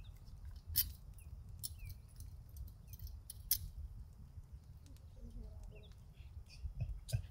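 Outdoor ambience: faint, scattered short bird chirps over a low rumble, with three sharp clicks spread through it.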